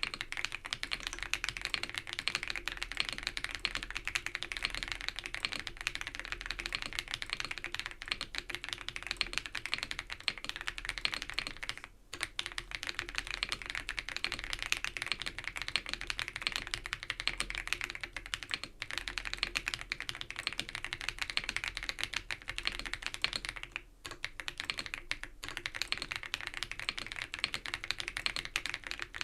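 Continuous fast typing on an ABKO AK100 full-size mechanical keyboard with non-clicky Baby Blue switches, a dense patter of keystrokes with brief pauses about twelve seconds in and near twenty-four seconds.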